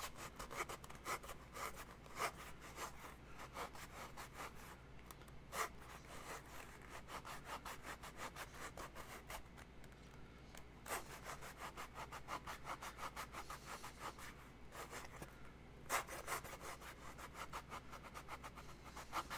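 Hand tool rubbing and scraping foam in quick, rhythmic back-and-forth strokes, several a second, with a few louder strokes. The foam is being shaved down by hand to thin its thick spots.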